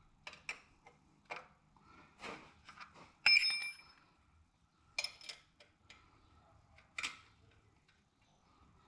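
Irregular metallic clicks and taps of a hand tool working on a motorcycle's shift linkage, with one ringing metal clink about three seconds in, the loudest of them.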